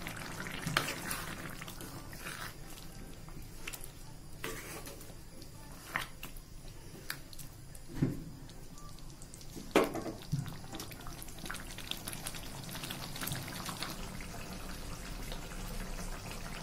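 A spoon stirring thick curry gravy in a metal kadai: scattered knocks and scrapes of the spoon against the pan, one every second or two, over soft wet sloshing of the gravy.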